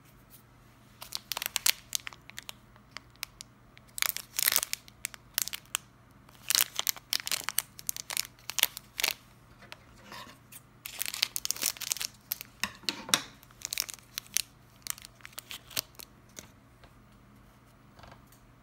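Clear plastic candy wrapper of a marshmallow crinkling and tearing as fingers handle it and pull it open, in clusters of sharp crackles.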